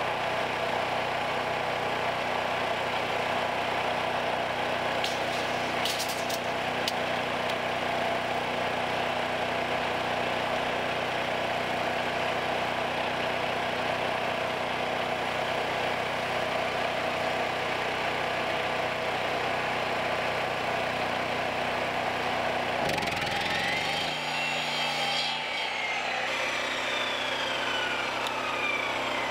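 Portable gas generator running steadily, with a few sharp clicks about six seconds in. Near the end, a power tool starts with a sudden burst, the generator's note shifts under the load, and a whine falls away as the sliding miter saw blade winds down.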